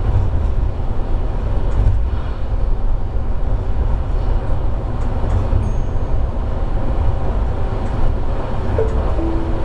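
Running noise of a Chemins de fer du Jura ABe 2/6 electric railcar heard from inside, a steady low rumble of wheels on rail with a few faint clicks.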